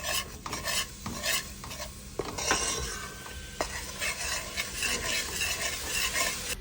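A spoon stirring and scraping flour as it is parched (toasted) in a pot for halwa, in repeated strokes, with a light sizzle underneath.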